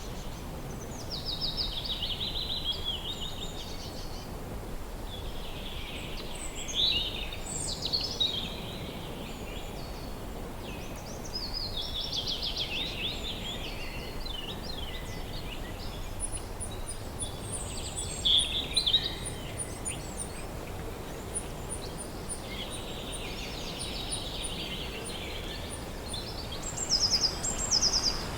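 Forest ambience: wind humming steadily through the trees, with songbirds singing short trilled phrases every few seconds over it. A thin, rapid run of very high notes sounds through the middle.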